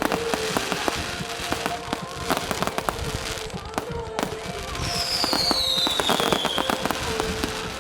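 Fireworks going off in a rapid, irregular run of sharp cracks and bangs. About five seconds in, a whistling firework sounds a single falling whistle lasting about two seconds.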